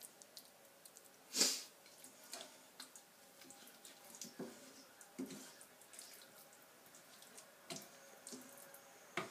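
Wooden spoon scooping thick curry in a pan and serving it onto a plate: faint scattered clicks, taps and wet scrapes. The loudest comes about a second and a half in, with another sharp click near the end.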